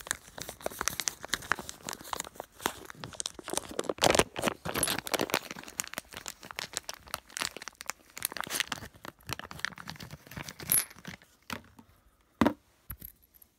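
Plastic packaging crinkling and tearing as a small bag holding a metal multi-size socket is worked open by hand, with a dense run of crackles that thins out near the end. A single sharp knock near the end.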